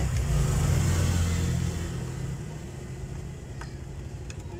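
A motor vehicle's engine running close by, its low hum fading away over the first two to three seconds. A couple of faint clicks come near the end.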